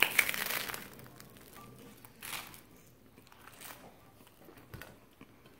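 A person biting into a torta on a toasted bread roll: a loud crunchy bite right at the start, then chewing, with smaller crunches about two and three and a half seconds in.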